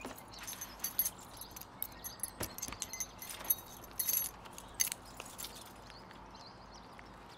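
A bunch of keys jangling and clinking, a quick run of small metallic clicks and jingles that dies away about five seconds in.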